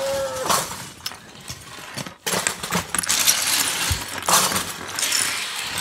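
Plastic Lego bricks clattering and clinking as someone rummages through a pile of them, busier from about two seconds in.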